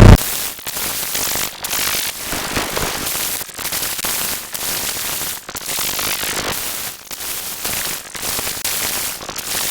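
Harsh, crackling static-like noise, strongest in the highs, broken by short dropouts about once a second.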